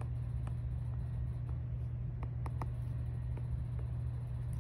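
Steady low hum, with faint, irregular taps of a stylus tip on a tablet's glass screen while colouring.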